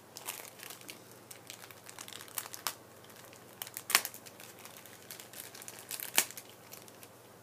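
Plastic packaging crinkling as it is handled, a scatter of small crackles with two sharper ones about four and six seconds in.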